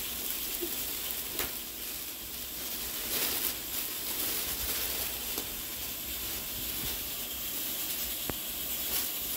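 Clear plastic bag and paper wrapping crinkling and rustling as hands pull a new handbag out of its packaging, with a few sharper crackles.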